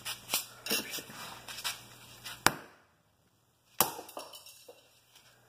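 Hammer blows smashing a metal fidget spinner on a concrete floor: a series of sharp knocks, the loudest about two and a half seconds in, then another hard strike just before four seconds as the spinner breaks apart.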